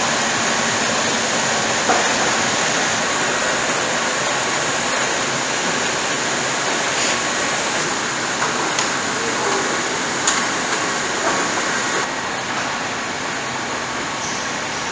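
Assembly-line factory ambience: a steady hum and hiss of machinery with a few faint knocks and clanks.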